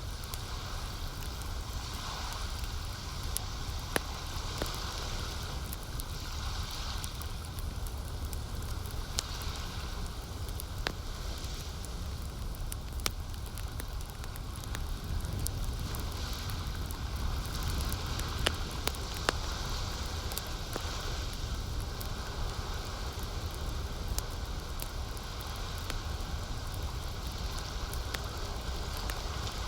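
Campfire burning with irregular sharp crackles and pops, over a steady wash of lake water lapping that swells and eases every few seconds.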